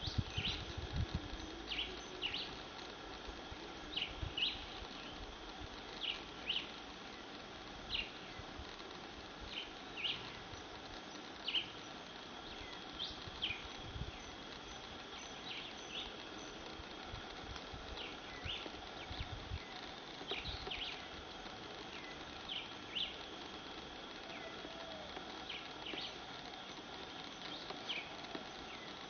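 Short, high chirps that sweep downward, often in pairs, repeat every second or two over a steady high-pitched insect drone, with a few low rumbles.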